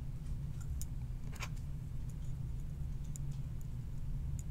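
A few small, separate clicks as ceramic capacitor leads are pushed into a printed circuit board and fingers handle the board, over a steady low hum.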